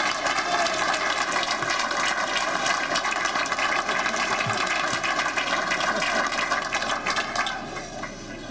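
Audience applauding, a dense run of many hands clapping that dies down near the end.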